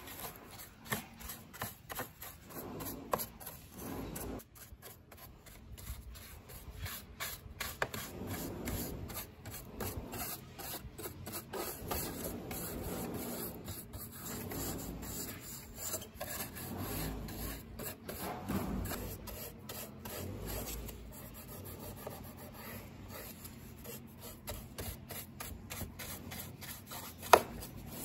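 A stiff-bristled paintbrush scrubbing caked dirt off the body of an old Panasonic M7 VHS camcorder, an irregular scratchy brushing in quick short strokes. One sharp tap stands out near the end.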